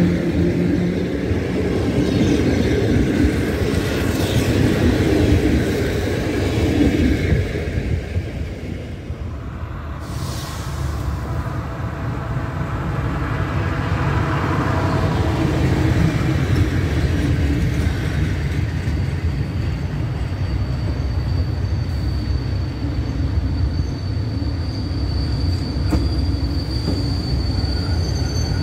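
Passenger train coaches rolling past at a station. Then an EP07 electric locomotive hauling an Intercity train approaches with a steady rumble, and a thin high squeal sets in during the last several seconds.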